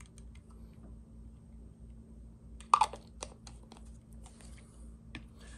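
A few light clicks and taps of small items being handled and set down on a workbench mat, the sharpest cluster a little before halfway, over a faint steady hum.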